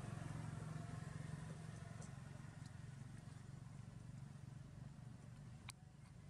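Faint steady low hum with a light hiss, easing off a little toward the end, with a few small faint ticks.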